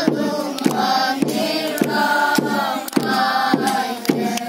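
A group of children singing a song together in unison, clapping their hands on the beat about one and a half times a second.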